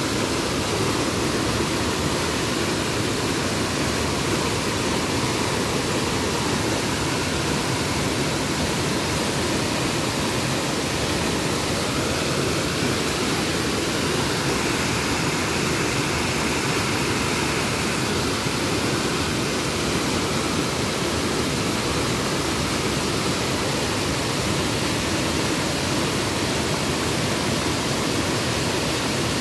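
Waterfall in flood, a heavy volume of water pouring over a rock face: a steady, even rush that holds at the same level throughout.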